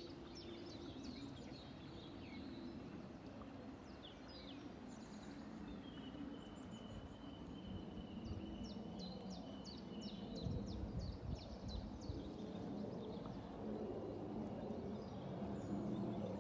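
Quiet lakeside ambience: small birds chirping and twittering, with a thin, steady high note held for a few seconds around the middle, over a low, steady background hum.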